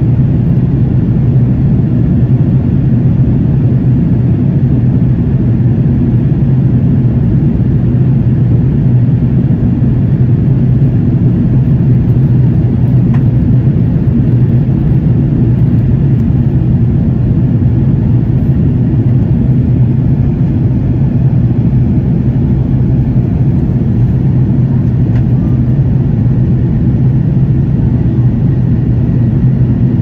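Steady, even drone of an airliner cabin in flight: jet engine and airflow noise heard from a passenger seat, low and unchanging.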